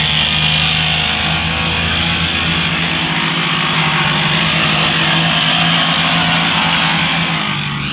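Riding lawn mower running at a steady speed while it drives and cuts, a constant engine drone with a harsh high-pitched noise over it, easing a little near the end as it passes.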